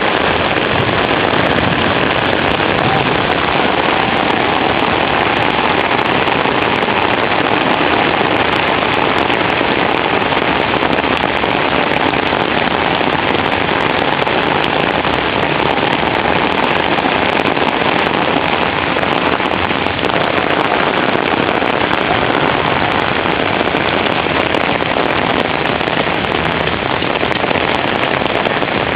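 Heavy rain falling steadily, a dense even hiss with many sharp ticks of drops hitting surfaces.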